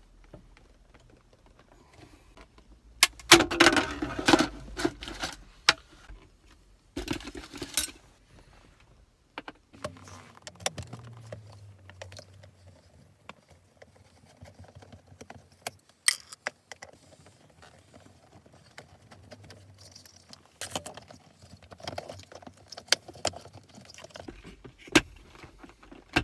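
Hand disassembly of a car's centre console armrest: scattered plastic and metal clicks, knocks and rattles as the screws are worked and the trim pieces handled. There are two louder spells of clatter a few seconds in.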